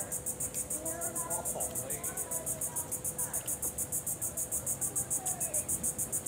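Insects calling in a steady, rapid, high-pitched pulsing, about five pulses a second. A faint steady hum lies beneath it.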